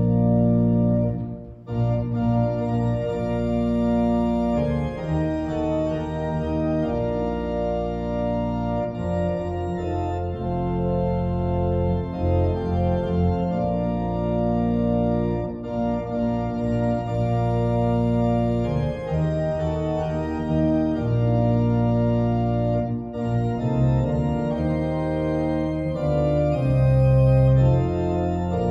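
Organ music playing slow, sustained chords, with a short break about a second and a half in.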